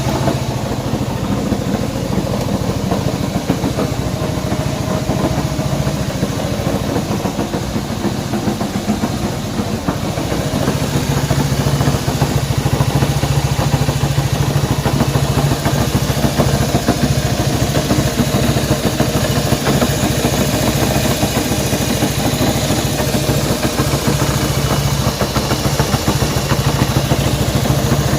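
Honda CB190R's single-cylinder engine idling steadily, growing a little louder about a third of the way in. The bike has a strange noise in the engine that is being tracked down.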